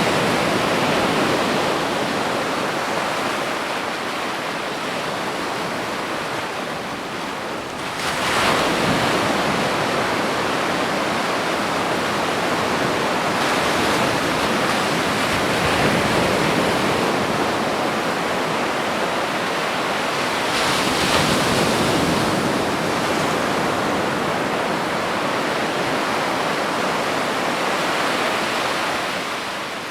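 Ocean waves breaking on a beach: continuous surf that swells as each wave comes in, with the strongest break about eight seconds in and another about twenty-one seconds in.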